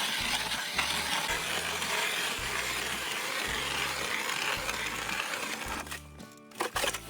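Background music with a steady bass line, under a dense, steady rushing noise that eases off near the end.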